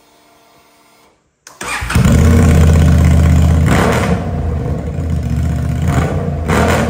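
Honda Transalp 750's parallel-twin engine started with no muffler fitted, so it runs straight-piped. After a faint hum, the engine cranks and catches about a second and a half in, then runs very loud and deep, with two short rises in revs, one near the middle and one near the end.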